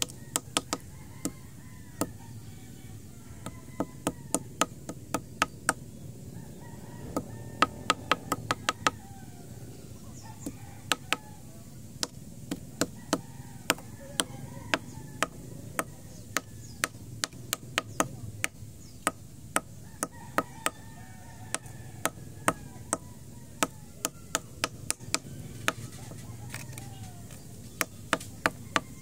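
Sharp clicks and taps in irregular clusters, several a second at times, as engorged ticks are crushed one after another against concrete with a hard object.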